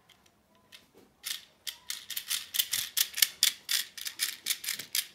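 Small plastic transforming toy car clicking and clacking as its parts are worked by hand, a fast run of about four or five sharp clicks a second starting about a second in.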